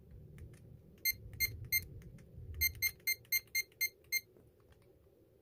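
Evernet digital door lock's keypad beeping: three short high beeps about a third of a second apart, then a quick run of about seven beeps. Faint clicks of its mechanical keys being pressed come in between.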